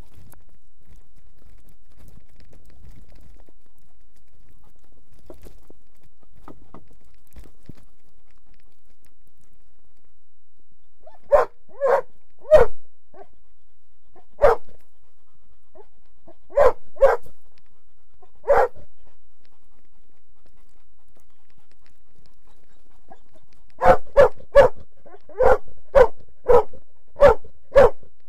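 Search and rescue dog barking, picked up close by a microphone on its own harness: barks begin about eleven seconds in, first in short groups and singles a second or two apart, then a quick run of about a dozen near the end. Barking while standing still is the dog's alert that it has found the missing person.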